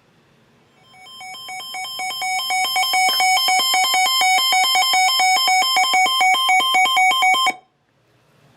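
Electronic weather-alert alarm: a rapid trilling beep pattern that alternates between several pitches, growing louder over the first couple of seconds and then cutting off suddenly. It heralds an incoming flash flood warning.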